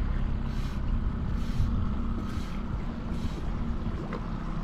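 Motorboat engine running steadily under way, with a short rushing whoosh a little more than once a second.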